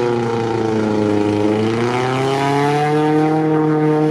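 Lada Niva off-road engine running hard, its pitch sagging and then climbing again as the throttle is worked, over the steady drone of another engine.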